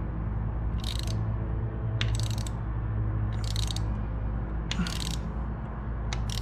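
Socket ratchet tightening the Suzuki SV650's oil drain bolt down onto its crush washer: a short run of pawl clicks on each back-stroke, five runs a little over a second apart, over a steady low hum.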